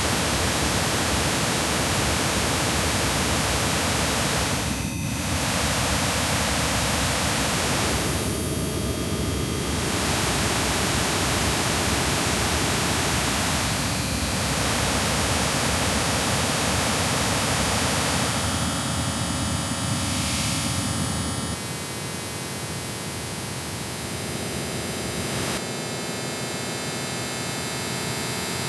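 Harsh noise music: a dense wall of hissing noise, with a faint held tone underneath, that changes its texture abruptly every few seconds. About three quarters of the way through it drops a little in loudness and thins out.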